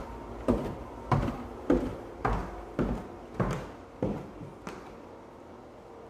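Footsteps going down a staircase, a thud with each step at a steady walking pace, about eight in all, stopping about five seconds in.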